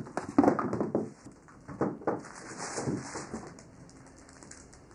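Footsteps on a wooden floor: a few irregular steps and knocks that die away about three and a half seconds in.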